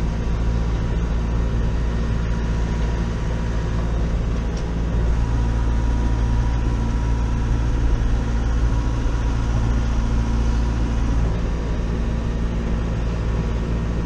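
Massey Ferguson 5440 tractor's four-cylinder diesel engine running steadily, heard from inside the closed cab.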